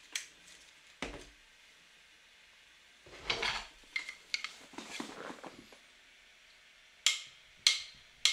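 Faint, scattered taps, knocks and short scrapes of paper sheets and small objects being handled on a wooden tabletop, with a cluster of rustling in the middle and two sharper knocks near the end.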